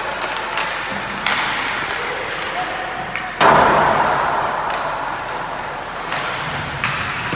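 Ice hockey play in an indoor rink: a sharp, loud bang about halfway through, a hard hit on the boards that rings out through the arena. Lighter clacks of sticks and puck come before and after it.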